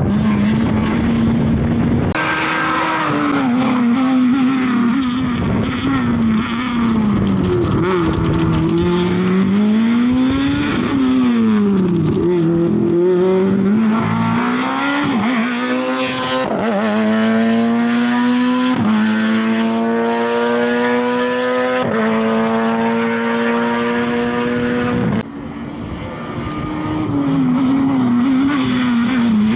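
VW Polo S2000 rally car's two-litre four-cylinder engine revving hard, its pitch rising and falling through the corners. Past the middle it climbs steadily through several gears, each upshift dropping the pitch sharply before it rises again.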